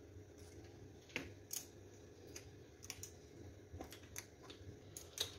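Faint, scattered clicks and light taps, about half a dozen spread unevenly over a few seconds, from small kitchen items being handled.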